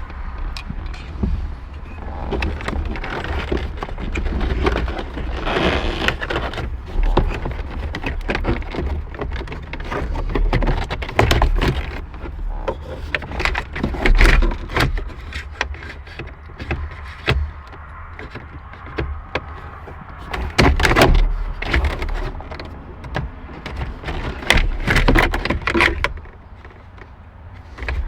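Plastic instrument surround being handled and fitted into a car dashboard: irregular clicks, knocks and scraping of plastic trim, with a low hum underneath. It goes quieter about two seconds before the end.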